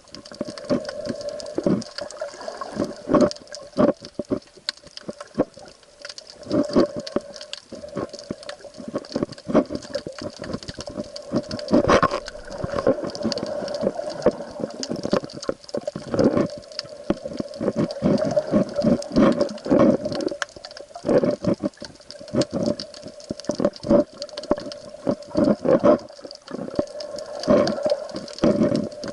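Water sloshing with many irregular knocks and thumps over a steady low hum.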